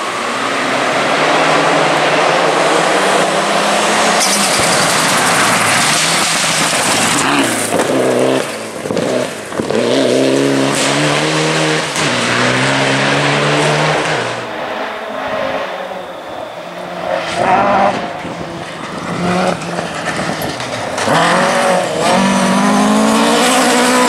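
Rally cars at full throttle on a gravel stage. The engines rev hard and drop back at gear changes, and gravel and tyres hiss and crunch beneath them. Several rise-and-fall passes follow one another as the cars come past.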